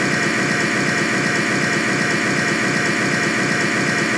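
A steady engine-like idling drone with a regular throb of about three to four beats a second.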